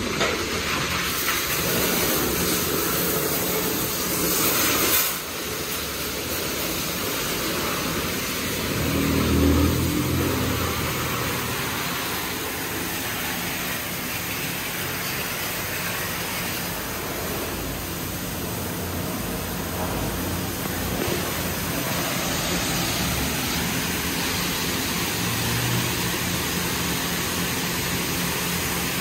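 Belanger Cube car wash gantry at work: spinning wrap-around brushes and water spray hiss over the car, with the hum of the wash machinery. The hiss is loudest for the first few seconds and drops off suddenly about five seconds in, then a low rumble swells briefly around ten seconds.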